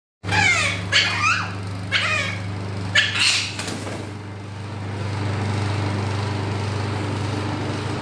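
Four harsh animal cries about a second apart as the pets squabble, over a steady low hum.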